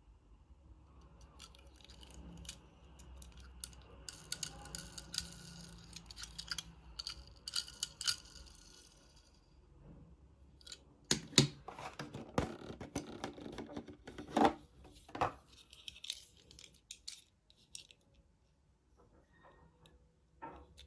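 Hot Wheels toy-car packaging being opened by hand: cardboard and plastic crinkling and tearing, with scattered clicks. Sharper, louder clicks and knocks come about eleven to fifteen seconds in.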